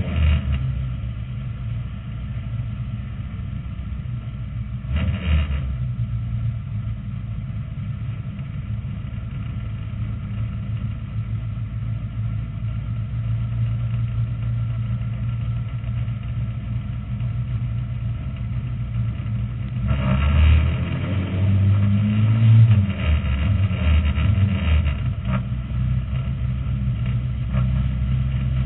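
Lightning Rod oval race car's engine heard from inside the cockpit at racing speed, its note rising and falling with the throttle through the bends. A brief louder rush of noise comes about five seconds in, and a louder, rougher stretch about twenty seconds in.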